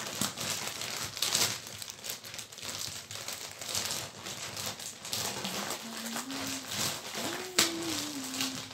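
Plastic snack wrappers and a potato chip bag crinkling as they are handled, in repeated rustling bursts, with one sharp click about three-quarters of the way through. A faint low humming tone comes in over the last few seconds.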